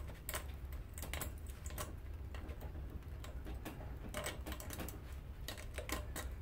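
Irregular sharp clicks and taps from hands working the copper windings out of an electric lawnmower motor, over a low steady hum.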